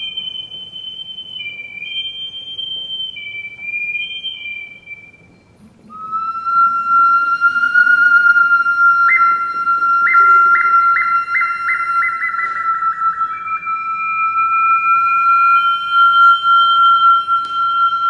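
Water instrument played: clear, sustained ringing tones, two overlapping high notes at first, then after a brief pause a new steady tone from about six seconds in. Between about nine and thirteen seconds, a run of quick pulses speeds up above the held tone.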